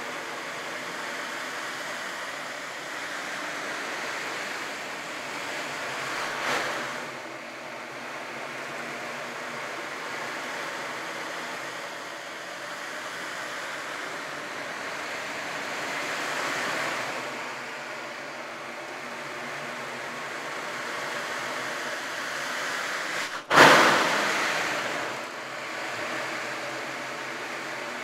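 An 18-inch goat-skin ocean drum tilted slowly round and round, its BBs rolling across the skin in a steady surf-like hiss that swells and fades like waves. Near the end the BBs crash against the skin at once in one sudden loud wave that dies away over a couple of seconds.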